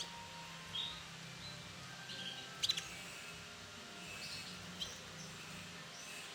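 Female canary giving short, scattered call notes, about five separate high chirps, with a sharper double tick about halfway, over a faint steady low hum.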